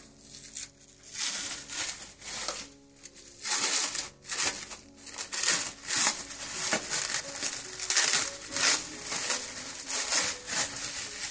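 Clear plastic cling film crinkling and crackling as it is peeled and pulled off a ball of dough, in irregular bursts that start about a second in.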